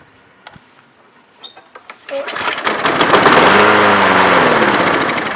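Lawn mower's Briggs & Stratton 675 series 190cc engine turning over about two seconds in after a few light clicks, its speed rising and then falling away as it fails to keep running. This is the no-start fault the mower is being fixed for.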